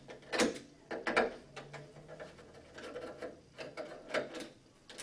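Metal retaining clips on a canopy light fixture's lens frame being worked loose by hand, giving several irregular metallic clicks and short scrapes.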